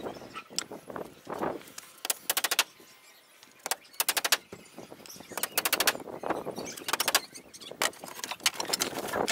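Claw hammer driving nails into wooden roof boards: several bursts of quick blows with short pauses between.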